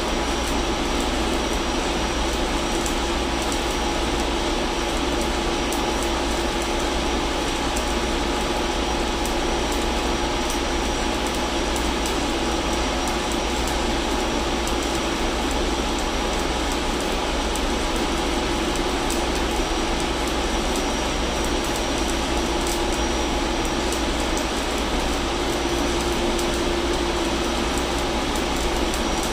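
Steady, loud drone of engine-room machinery and ventilation, with a steady hum under it. Over it comes the fine, irregular crackle of an arc welder laying a bead on a steel pipe fitting.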